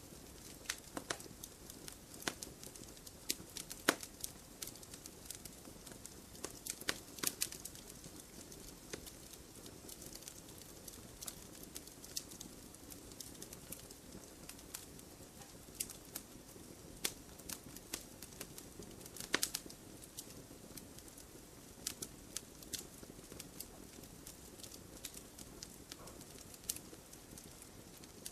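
Campfire crackling: irregular sharp pops and snaps over a soft steady hiss, with a few louder pops now and then.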